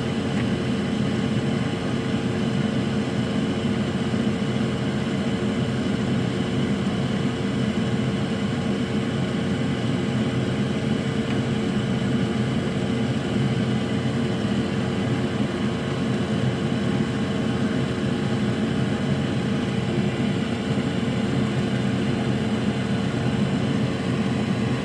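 Steady whir of an electric fan at a soldering bench, running without change, with a low hum under it.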